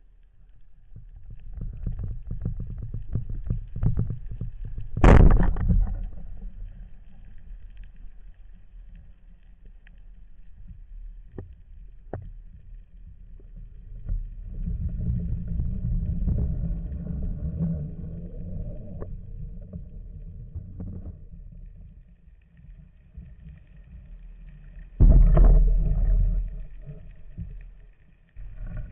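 Water noise on an underwater camera during a spearfishing dive: low rumbling and gurgling movement that swells and fades, with scattered clicks. A loud sudden knock comes about five seconds in and another near the end.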